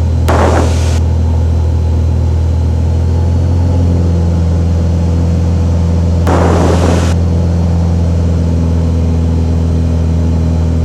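Cessna 182's engine and propeller drone in the climb, a steady low hum heard inside the cockpit through the headset intercom. Two brief hissing bursts come at the start and about six seconds in.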